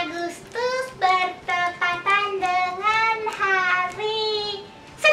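A high, childlike character voice singing a short sing-song tune in held, bending notes.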